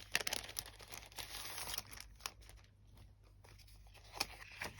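Thin sheets of paper ephemera rustling and crinkling as they are handled, fading after about two seconds into a few light taps and clicks.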